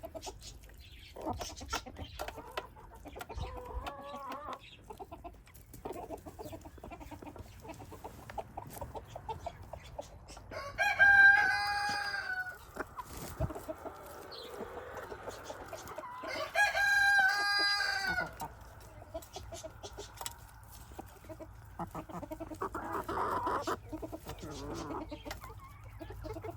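A flock of chickens clucking, with a rooster crowing twice, about ten seconds in and again about six seconds later; each crow lasts about two seconds and is the loudest sound.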